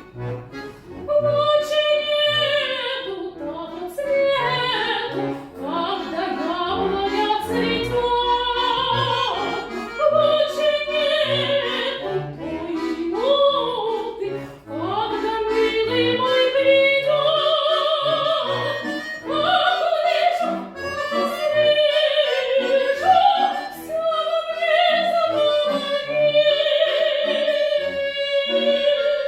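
Classical-style solo singing with strong vibrato, held notes and sliding phrases, over an instrumental accompaniment with a steady, regularly stepping bass.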